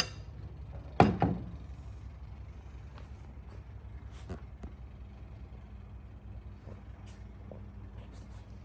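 A low, steady hum, with a loud knock about a second in, a smaller one right after, and a few faint clicks later on.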